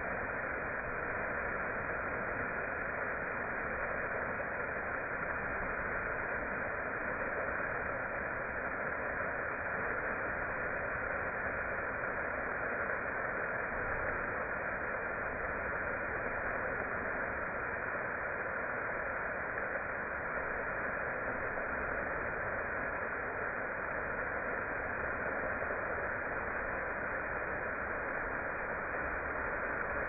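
Waterfall splashing down a rock face: a steady rushing of falling water.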